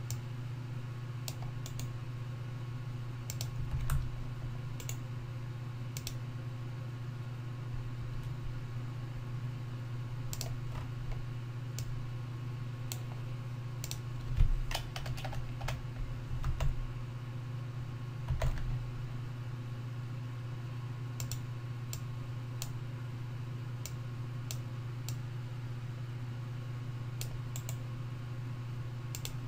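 Scattered computer keyboard keystrokes and clicks, with a few heavier knocks, over a steady low electrical hum.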